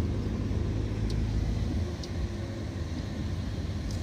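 Car driving slowly at a steady speed, heard from inside the cabin: a steady low engine hum with road and tyre noise.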